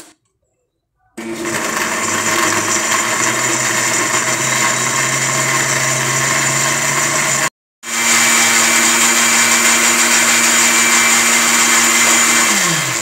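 Electric countertop blender puréeing tomatoes with water, running steadily at speed. It starts about a second in, breaks off for a moment past the halfway mark, runs again, and winds down with a falling pitch just before the end.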